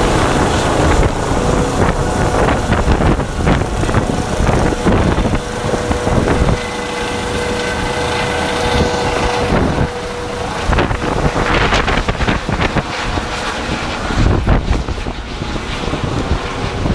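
ADAC Eurocopter EC135 rescue helicopter climbing away overhead after take-off, its turbines and rotor running loud and steady, with a steady whine for the first ten seconds or so. Gusts of wind buffet the microphone throughout.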